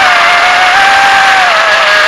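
GEPRC AX-5 racing quadcopter's brushless motors and propellers whining in flight. The pitch wavers with the throttle and dips briefly about one and a half seconds in before climbing back.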